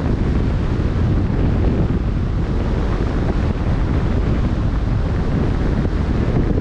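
Wind buffeting the microphone at sea, a steady low rumble, with the wash of choppy waves beneath it.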